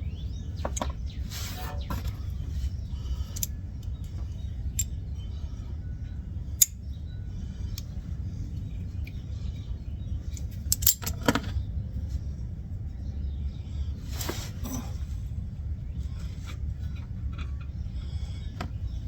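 Hand tools and steel steering parts clinking and tapping now and then, with a sharp metallic click about six and a half seconds in and short clatters around eleven and fourteen seconds, during work on the idler arm and its cotter pin. A steady low hum runs underneath.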